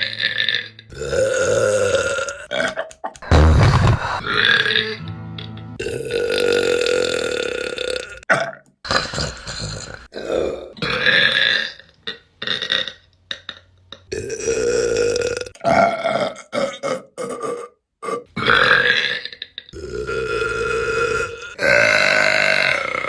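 A run of about a dozen women's burps, one after another with short gaps. Many are long and drawn-out, held for a second or two, with a few short sharp ones in between.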